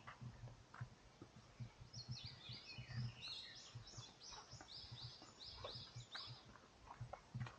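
A small songbird singing a quick run of repeated high, falling notes, beginning about two seconds in and stopping after about six seconds, over a faint, uneven low rumble.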